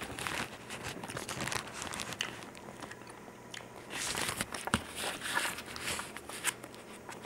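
Close rustling and crinkling of a paperback book being handled right at the microphone, with scattered small clicks. There is a quieter stretch in the middle.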